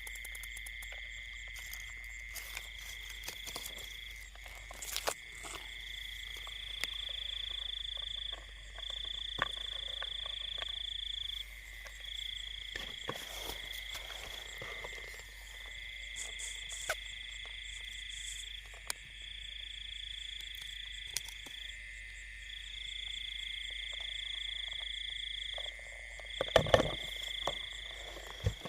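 Night chorus of frogs and insects in a rice field: a steady high trill runs on, while a higher trill comes in stretches of one to three seconds. Scattered faint clicks, and a few loud knocks near the end.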